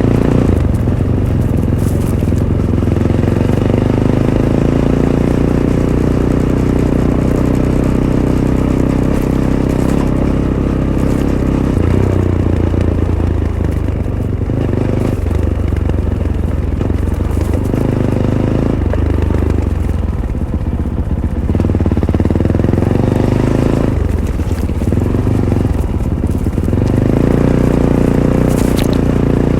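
Fantic Caballero 500's single-cylinder engine through its stock Arrow exhaust, running under load, its pitch rising and falling repeatedly as the throttle is opened and closed.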